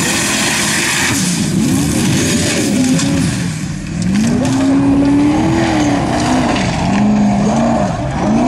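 Formula offroad buggy's engine revving hard. Its pitch climbs and falls again and again as the driver works the throttle with the paddle tyres spinning in loose sand on a steep climb. There is a brief dip in loudness about four seconds in.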